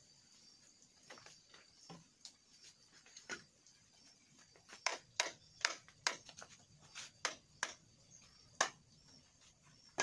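Hollow knocks and clacks of bamboo on bamboo as poles of a bamboo frame are handled and fitted together: a few scattered knocks, then a quicker run of about ten sharp knocks from about five seconds in.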